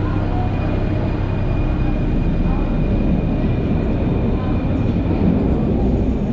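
Paris Metro MF01 steel-wheeled train running, a loud, steady rumble with a faint, thin high whine held throughout.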